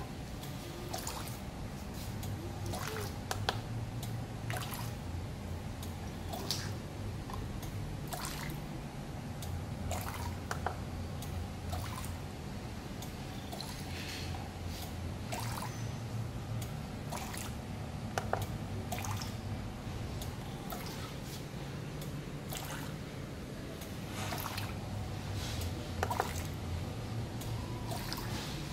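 A small benchtop liquid filling machine's pump hums in spells of several seconds, as bottle after bottle is filled, while liquid trickles and drips into a small glass bottle. Short clicks and glass clinks come throughout.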